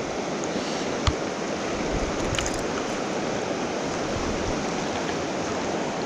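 A shallow mountain stream running over a rocky riffle, a steady rush of water, with a small click about a second in.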